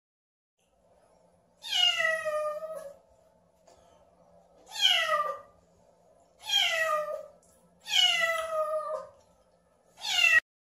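Young kitten meowing five times at a closed door, each call a falling cry; the last one cuts off short.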